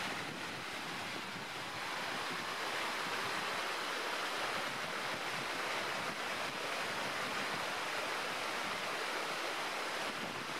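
Shallow mountain stream running over rocks: a steady, even wash of water.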